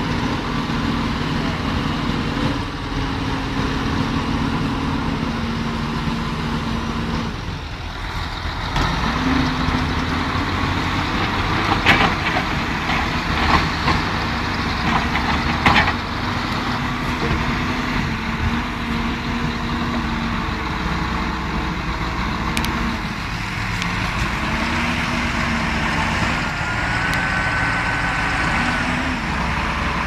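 Diesel engine of a backhoe loader bogged down in mud, running loudly, its speed rising and falling again and again as the machine works its arm and bucket. A few sharp knocks come about halfway through.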